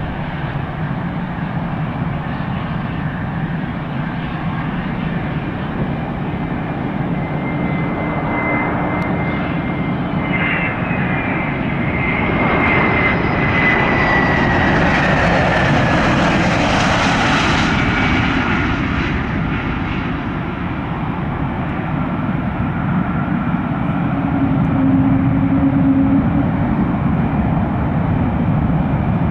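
Gulfstream G600 business jet landing, its two Pratt & Whitney PW815GA turbofans running throughout. The jet noise swells as it passes close by, with a whine falling in pitch. It then eases and swells again near the end as the jet rolls down the runway.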